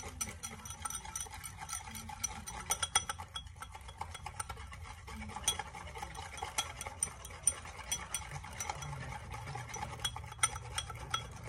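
Small wire whisk beating a little chocolate mix and water in a plastic bowl by hand: a fast, uneven run of light clicks and scrapes as the wires strike the bowl. The mixture is being whipped to thicken it.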